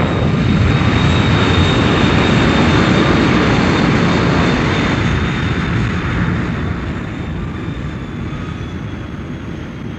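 Thunderbird 1's rocket engines firing for liftoff: a loud rushing roar that starts abruptly, with a steady high whine on top. The roar eases off through the second half, and the whine drops slightly in pitch near the end.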